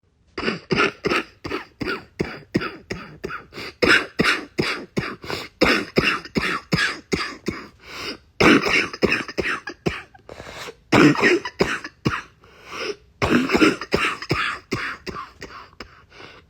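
A person with a chest cold coughing in rapid fits: many short, congested, barking coughs, about three a second, from mucus in the lungs, with brief pauses for breath between fits.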